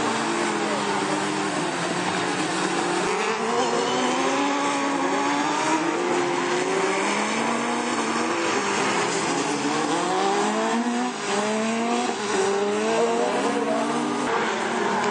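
Several autocross buggies' engines at full throttle, their pitch climbing and dropping back again and again as they shift up through the gears, more than one car at once.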